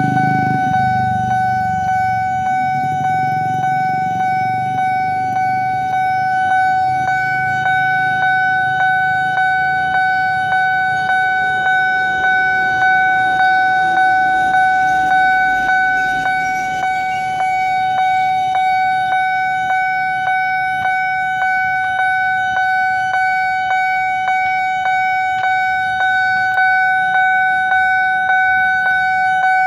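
Railway level-crossing warning alarm sounding continuously while the barrier is down: a steady, high electronic tone pulsing in an even rhythm, signalling that a train is approaching. A vehicle engine rumbles low underneath at the start.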